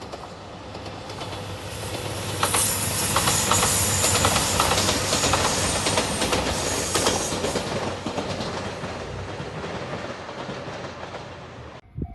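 Diesel limited express train passing close by: a rising rumble with a low engine hum, wheels clacking rapidly over rail joints at its loudest from about two and a half seconds in, then fading. The sound cuts off abruptly near the end.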